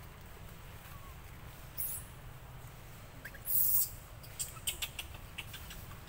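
Forest ambience over a steady low rumble, with two brief rustling bursts, the louder one near the middle, followed by a quick run of short sharp clicks or chirps.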